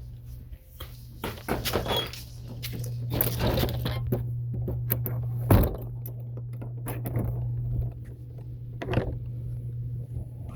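Knocks, clatter and thunks of objects being handled, moved and set down, with one sharp thunk about five and a half seconds in, over a steady low hum.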